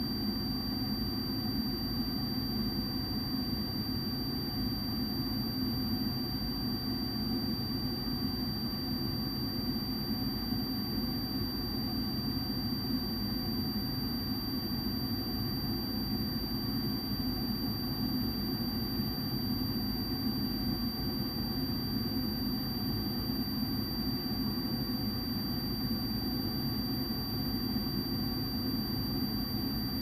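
Furnace draft inducer blower running steadily, with a multimeter's high continuity tone held steady on top: the tone shows that the inducer's vacuum is still holding the pressure switch closed.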